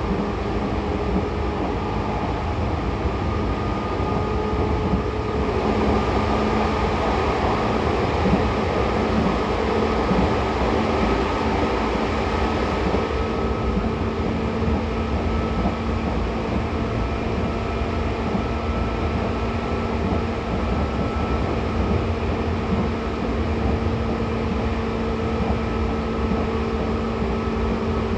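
Running sound inside a Seibu 2000 series field-chopper electric train car: a steady rumble of wheels on rail under a level gear and motor whine, with the car at a constant speed. For several seconds from about five seconds in, the noise grows louder and hissier, then settles again.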